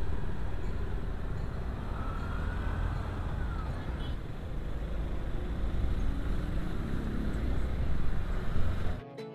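Hero Xpulse 200 4V single-cylinder motorcycle pulling away and riding through city traffic, heard from the rider's camera as a steady low rumble with the traffic around it. Plucked music cuts in at the very end.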